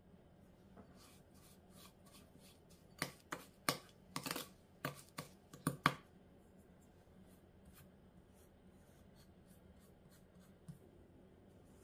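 A spoon clicking and scraping against a small glass bowl as softened butter and sugar are mixed. There is a quick run of sharp clicks about three to six seconds in, with lighter ticks before and after.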